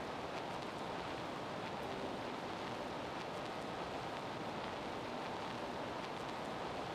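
Steady noise of a gym during a basketball game, with a few faint short ticks.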